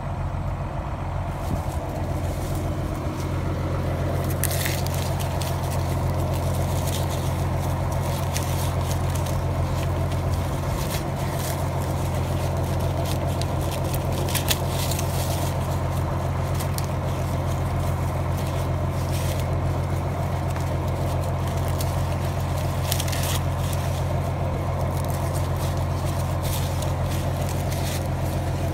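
Tractor engine idling steadily, with dry corn husks crackling and rustling as they are pulled back from an ear by hand, a few sharper crackles now and then.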